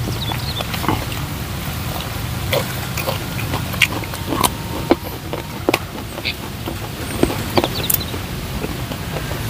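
Close-miked chewing and lip-smacking of people eating with their hands: a scatter of short wet clicks and smacks over a steady low background noise.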